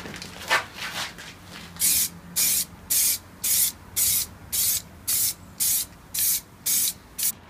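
Aerosol spray-paint can hissing in short, even bursts, about two a second, as it is swept in passes around an alloy wheel rim.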